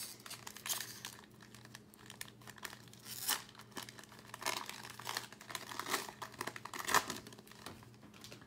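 Panini Prizm basketball card pack's foil wrapper being torn open and crinkled by hand, in irregular crackles and short tears, the sharpest about three seconds in and again near seven seconds.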